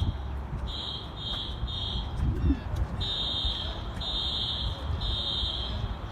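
Dormitory fire alarm sounding, a high-pitched electronic beep in groups of three: three quick beeps about a second in, then three longer beeps from about three seconds in. It is an evacuation signal that the residents say is a false alarm.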